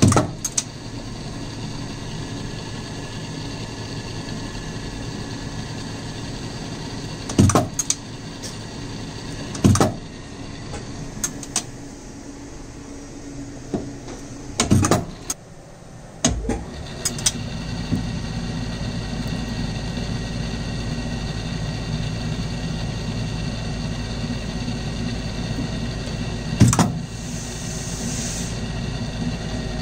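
Small metal lathe running with a steady hum, broken by sharp metallic clunks as tools on the turret are brought up to a small stainless steel screw. The hum dips a little after halfway and comes back louder.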